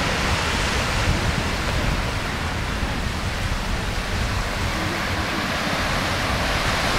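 Steady rush of small waves breaking on a sandy beach, with wind rumbling on the microphone.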